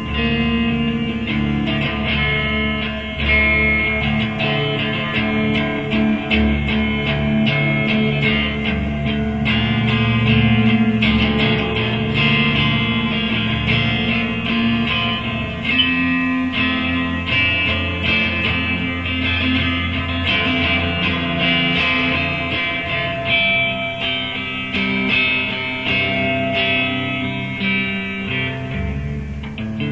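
Electric guitar played unaccompanied, a steady run of picked and strummed chords mixed with single notes.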